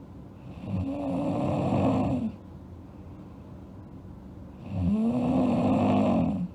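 A sleeping girl snoring: two long snores about four seconds apart, each lasting nearly two seconds, over a low steady hum.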